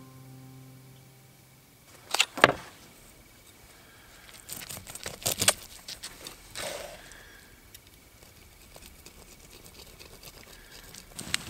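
A knife working a small fish on a wooden board: sharp clicks and knocks, the loudest about two seconds in, then scattered scrapes and clicks of blade and handling.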